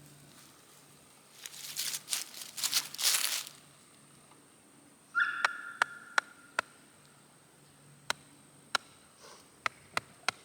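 A stake being driven into the ground with a string of sharp, irregular strikes, the first one ringing briefly; rustling before the strikes begin.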